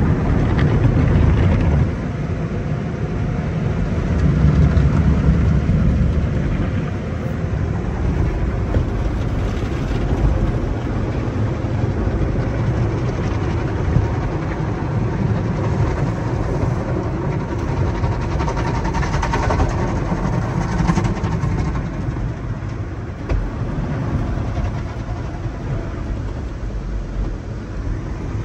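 Tunnel car wash heard from inside the car's cabin: a steady rush of spraying water and wash equipment working over the windshield and body as it is covered in foam, swelling louder a few times.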